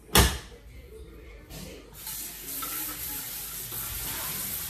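A single loud knock of kitchenware just after the start, then a steady hiss that begins about two seconds in and carries on: kitchen work at the sink or stove.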